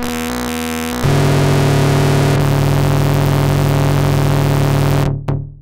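Harsh, filthy cross-modulated modular synth drone: an oscillator and a self-oscillating Instruo i-o47 filter modulating each other in a feedback loop routed through a pin matrix mixer. For about the first second it stutters and chops as pin cables are changed, then runs on as a dense buzzing tone, and near the end it breaks into a few short, sharp decaying hits.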